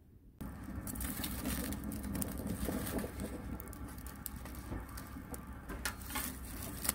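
Wood fire crackling in a small camp wood stove with its door open, with scrapes and sharp metallic clicks as metal tongs poke and shift the glowing embers. It starts abruptly about half a second in, and the clicks come more often near the end.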